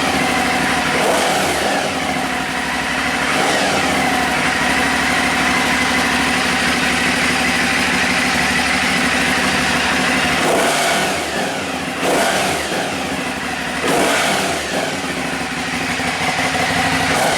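Aprilia Dorsoduro 750 supermoto's 750 cc V-twin on its stock exhaust, idling with a few quick throttle blips, the revs rising and falling back each time.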